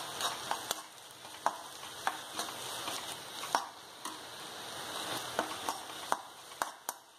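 Sliced onions frying with a faint sizzle in a black kadai while a steel spoon stirs them, its edge giving irregular sharp clinks and scrapes against the pan.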